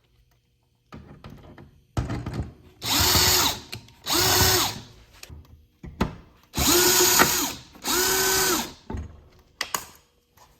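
System Sensor SpectrAlert Classic fire alarm horn sounding in loud, harsh, buzzy blasts about a second long, two at a time with a pause between pairs: the demo panel in full alarm. Its pitch sags as each blast dies away, and a few clicks come near the end.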